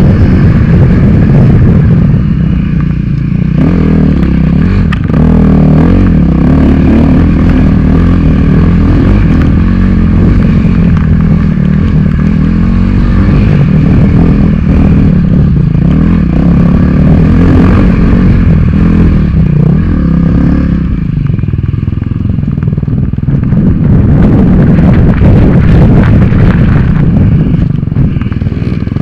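Dirt bike engine being ridden hard at high revs, its pitch rising and falling with throttle and gear changes. It eases off briefly twice, a few seconds in and again about two-thirds of the way through.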